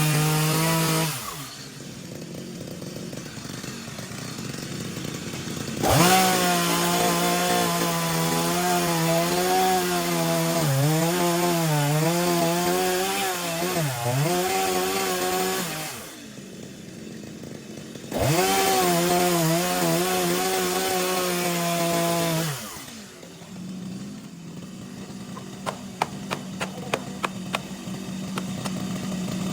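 Two-stroke chainsaw revved hard for two long cuts, the engine pitch sagging and wobbling as the chain bites into wood and vegetation, dropping back to a low idle between cuts and near the end.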